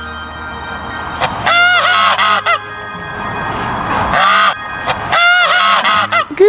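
Domestic geese honking: runs of several quick nasal honks in a row, three runs spaced a second or two apart.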